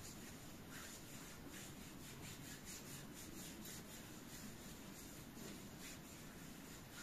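Hand rubbing a warming body-wrap cream into the skin of the belly: faint, repeated soft strokes, quickest in the middle.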